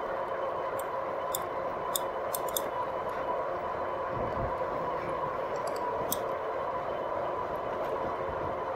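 RadMini electric fat-tyre bike riding along: a steady hum and whine from the hub motor and tyres on the road, with a few light ticks and rattles from the bike.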